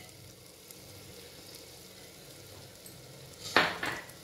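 Tomato and spinach masala sizzling softly in a steel pressure cooker, with a brief louder noise about three and a half seconds in.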